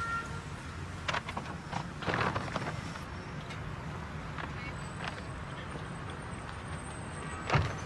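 Low steady rumble of a car at the kerb, with a few clicks and knocks as its doors are opened, and a car door shutting with a thump near the end.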